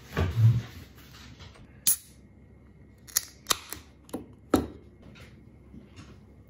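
An aluminium beer can being handled on a table, with a thump and a run of sharp clicks. Its pull tab cracks open about four and a half seconds in, and the beer then starts pouring into a glass.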